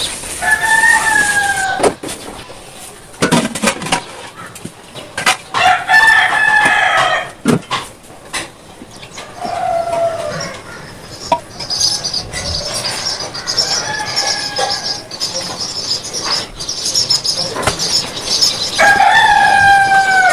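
Drawn-out animal calls, each lasting about a second or more and falling slightly in pitch, heard about five times, with scattered clicks and knocks throughout. A high, rapid chirping joins in around the middle.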